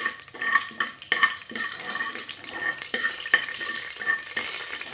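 A metal ladle scraping and knocking against the inside of a pressure cooker, roughly every half second, the pot ringing with each stroke, while whole spices sizzle in hot oil.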